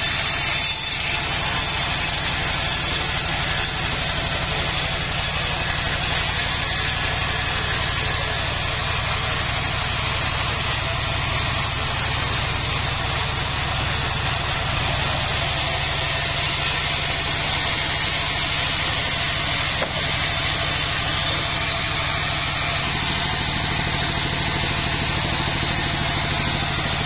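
Band sawmill running steadily as its blade rips lengthwise through a long mahogany log: a continuous, even machine drone with the sawing noise over it.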